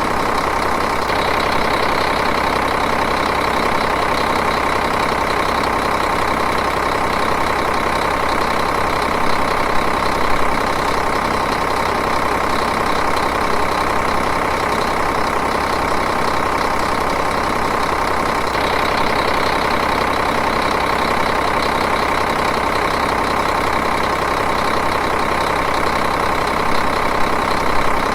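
Diesel engine idling steadily, a continuous even rumble with a fine regular pulse.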